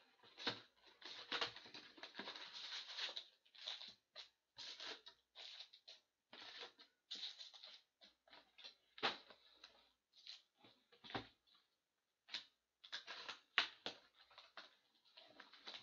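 SP Authentic hockey card boxes and their plastic wrap being handled and opened: irregular crinkling and rustling in short bursts, with a few sharper clicks and taps.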